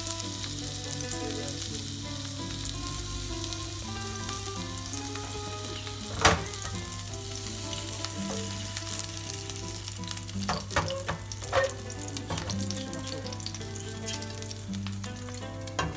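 Frozen saury (sanma) patties frying in oil in a non-stick pan over low heat: a steady sizzle with a few sharp pops, the loudest about six seconds in and a cluster between about ten and twelve seconds.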